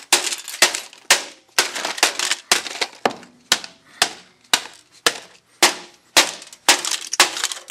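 Hammer striking again and again at a steady pace of about two blows a second, smashing brittle items with sharp cracks and the clink of breaking pieces.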